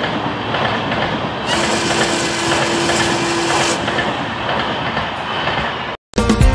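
Passenger coaches of an Indian express train running through a station at speed: a steady noise of wheels on rail, with a brighter hiss and a steady tone for about two seconds in the middle. The train noise cuts off suddenly about six seconds in and music begins.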